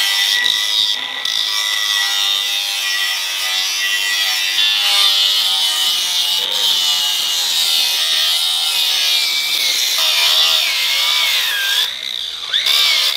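DeWalt angle grinder with an abrasive disc grinding a steel pipe and angle, cleaning the surface down to bright metal for welding. Its high whine sags and wavers as the disc is pressed into the work, dipping briefly near the end before it picks back up.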